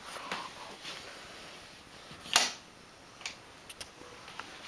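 Handling noise from a handheld camera being carried: faint clicks and brushing, with one short louder rustle about two and a half seconds in.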